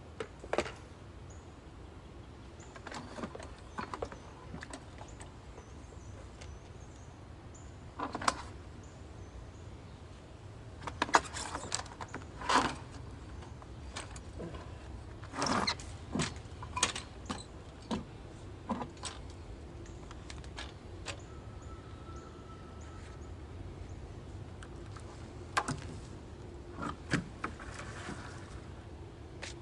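Scattered knocks, clicks and clatter at irregular intervals over a low steady hum.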